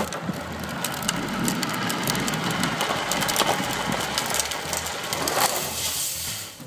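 Wheels of a Radio Flyer big-wheel trike rolling and skidding over asphalt: a steady gritty scraping full of fine crackles.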